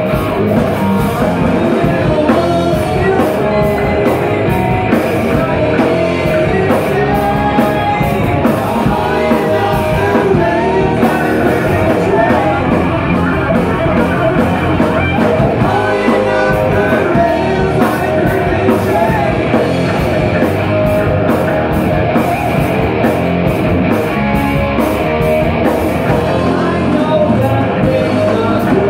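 Live rock band playing loud: electric guitar through a Randall amplifier, bass guitar and drum kit, with a male singer.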